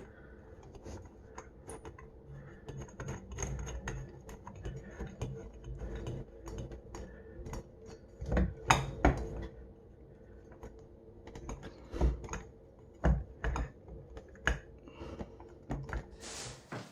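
Hardware of a wall sconce light fixture being handled and fitted by hand: a run of small clicks and taps, with a few louder knocks, as the decorative cap is put on and the fixture is assembled.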